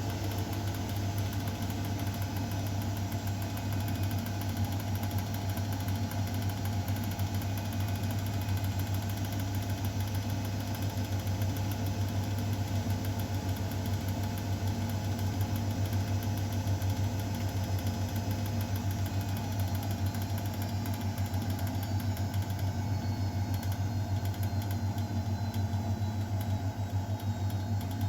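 Miele Novotronic W912 washing machine running mid-programme: a steady, unbroken machine hum with a strong low drone.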